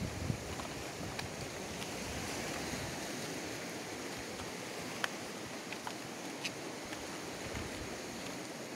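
Sea surf washing steadily, with a few sharp taps scattered through it, the sharpest about five seconds in.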